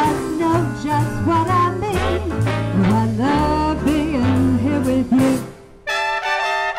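A woman singing a swing-style song into a handheld microphone over a brass-led swing accompaniment. Near the end her voice stops, and the accompaniment holds a sustained chord.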